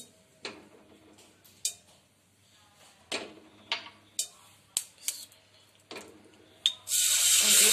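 A scattering of short, sharp clicks from the stainless steel karahi with a little oil in it, then, near the end, a loud steady sizzle starts as marinated chicken pieces go into the hot oil.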